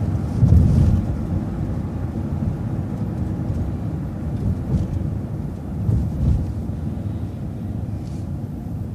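Transit bus driving, heard from on board: a steady low engine and road rumble that swells louder twice, about half a second in and again around six seconds.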